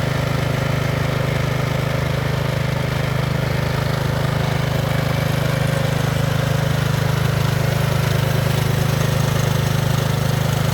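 Zero-turn ride-on lawnmower's engine running steadily at a constant speed, with no revving.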